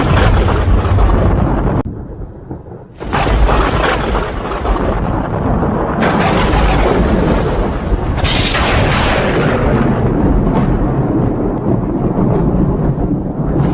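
Heavy thunder: a deep rolling rumble that eases briefly, then breaks into a sudden loud crack about three seconds in, with further claps about six and eight seconds in.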